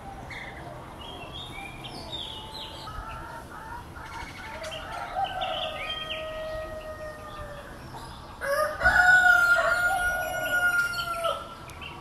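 Bird calls: scattered short chirps, then about eight seconds in one loud, long drawn-out call held for about three seconds.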